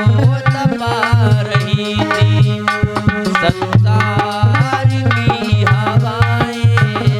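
Bhajan music: a steady tabla beat with a melody line over it.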